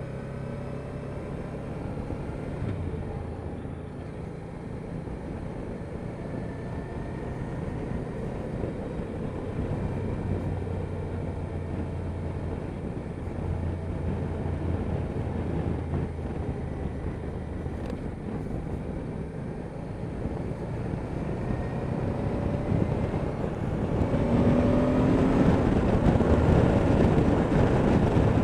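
Honda Deauville NT650V's V-twin engine running under way, its pitch rising and falling with the throttle, under a steady rush of wind noise on the camera microphone. The wind noise grows louder near the end as the bike picks up speed.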